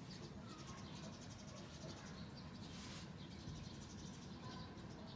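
Quiet hand-sewing: a soft rustle about three seconds in as yarn is drawn through a fluffy knitted hat, over a low steady hum, with faint high chirping in the background.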